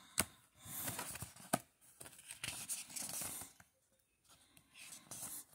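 A picture book being opened and its pages turned: faint paper rustling, with two sharp clicks in the first two seconds.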